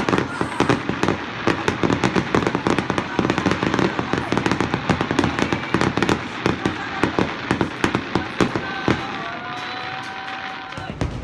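Fireworks going off in a dense barrage of rapid bangs and crackles that thins out over the last couple of seconds.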